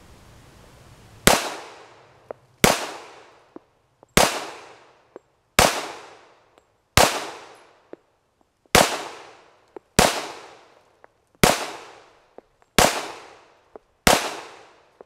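Springfield Armory XD(M) .45 ACP pistol fired ten times in slow, steady succession, a shot about every one and a half seconds, each report ringing off as it fades. Faint clicks fall between some of the shots.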